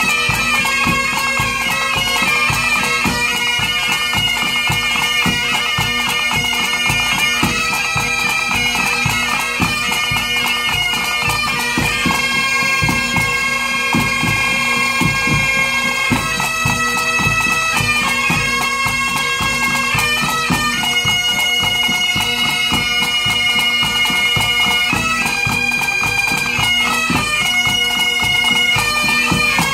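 Pipe band playing: Great Highland bagpipes sounding a melody that changes note every second or so over steady, unchanging drones, with the band's snare and bass drums beating along.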